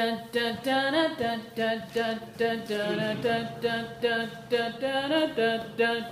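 Background music of voices singing in a quick, steady rhythm.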